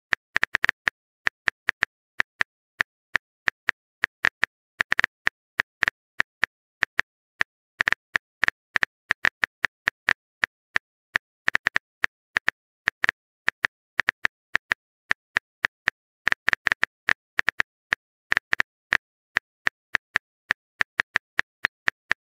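Typing sound effect: a long run of sharp keyboard clicks, several a second in irregular bursts with short pauses, standing for a long text message being typed.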